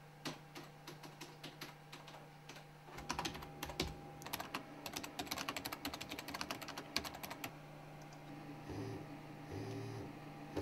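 Typing on a computer keyboard, a run of quick key clicks for about seven seconds over a steady low hum. Near the end a mobile phone buzzes twice on vibrate against a wooden desk, signalling an incoming call.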